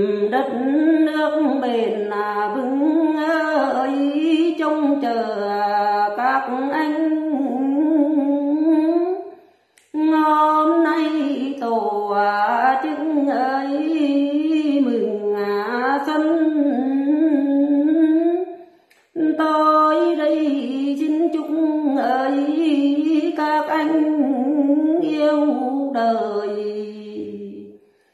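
A woman singing solo and unaccompanied, a Tày–Nùng folk song in long, wavering, ornamented phrases. Three phrases of about nine seconds each, with a short breath between them.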